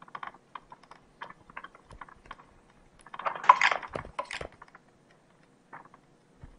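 A 2018 Trek Remedy 9.8 mountain bike being handled on a loose, rocky trail: irregular clicks and light rattles, with a louder scraping rattle about three and a half seconds in.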